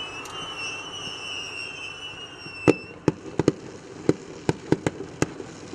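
Fireworks going off: a high whistling tone for the first few seconds, then a quick string of about nine sharp bangs, the first one the loudest.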